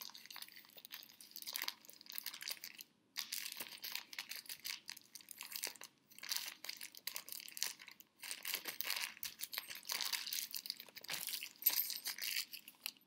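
Wrapping paper crinkling and tearing as a small present is unwrapped by hand, in irregular rustles that stop briefly a few times.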